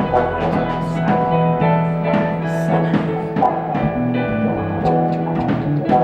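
Live rock band playing an instrumental passage: drum kit keeping a steady beat under held notes and chords.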